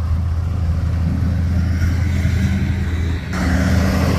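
Tractor diesel engine running with a steady low drone. About three seconds in it gets louder and rougher as the tractor drives past.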